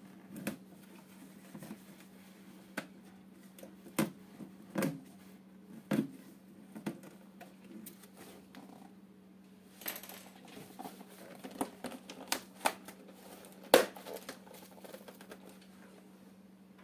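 Small cardboard product box being handled and opened by hand: scattered taps, scrapes, clicks and knocks of cardboard and packaging, with a brief rustle about ten seconds in and the sharpest knock near fourteen seconds, over a low steady hum.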